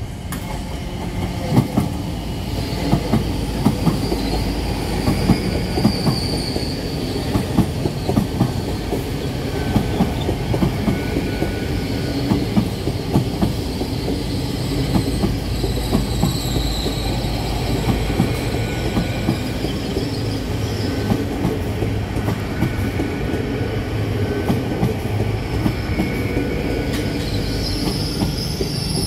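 Great Western Railway Hitachi Intercity Express Train passing slowly at close range: a steady low rumble with an irregular clatter of wheels over rail joints and points, and a high wheel squeal that wavers in pitch.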